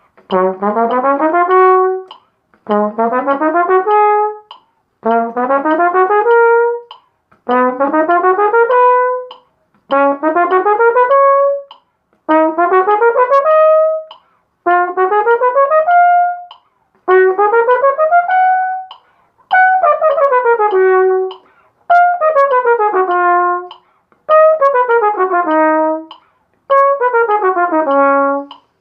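Flugelhorn playing a technique exercise: about a dozen short runs of quick notes, each ending on a held note, with brief pauses for breath. The runs climb in the first half and descend in the second.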